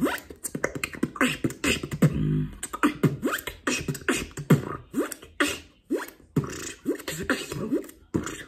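Beatboxing: a quick, even rhythm of mouth-made percussion, many of the hits with short pitch sweeps, and a brief held pitched tone about two seconds in.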